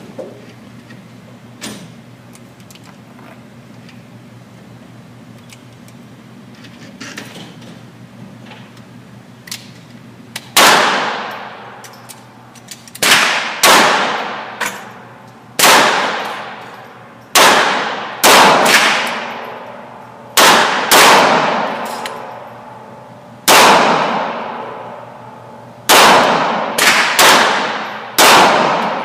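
Gunshots at a shooting range, fired singly with uneven gaps, each followed by a long ringing echo. About the first ten seconds hold only a steady low hum and a few small clicks.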